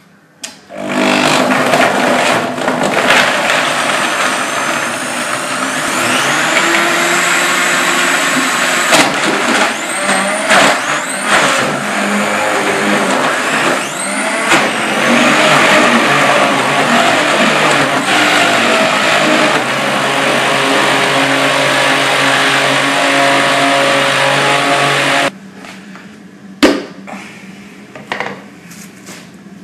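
High-powered countertop blender motor running loudly, pureeing a jar full of whole peeled bananas, its whine rising and falling in pitch as the load changes. It cuts off suddenly, and a single knock follows a second or so later.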